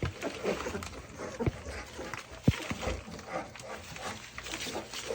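Young puppies squeaking and grunting as they feed together at a shared bowl on their first meal. Two low knocks break in, the louder one about two and a half seconds in.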